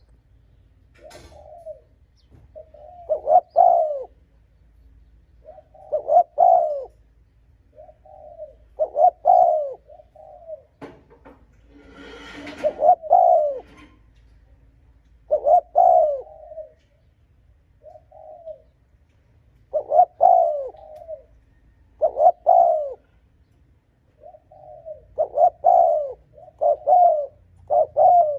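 Spotted dove cooing, one short phrase about every three seconds and coming quicker near the end.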